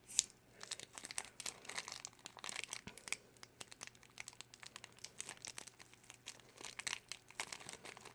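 A Shopkins blind bag's thin printed plastic crinkling and tearing as it is worked open by hand, a dense run of irregular crackles.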